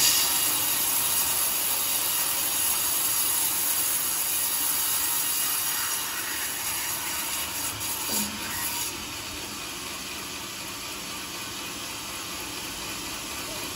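Band sawmill sawing lengthwise through a coconut-palm log, a steady rasping run of the blade through the hard wood. About nine seconds in the noise drops to a lower steady level.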